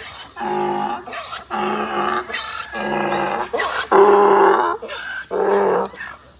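Goats bleating loudly, one call after another: about six pitched calls, each under a second long.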